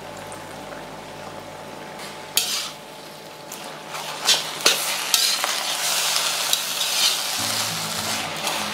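A metal spatula stirs and tosses noodles, prawns and squid in a hot wok, scraping and clattering against the pan over steady frying sizzle. The sizzle flares sharply about two seconds in, and the stirring and clatter grow busier from about four seconds on.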